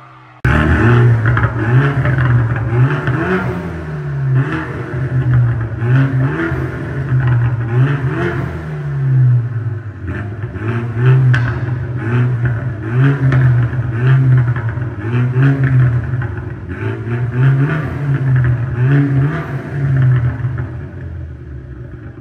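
BMW 228i's 2.0-litre turbocharged four-cylinder revved repeatedly while stationary, through a straight-piped dual-exit exhaust with the muffler and resonator deleted. It is a bassy note blipping up and falling back every second or two, in an underground car park, and it eases back toward idle near the end.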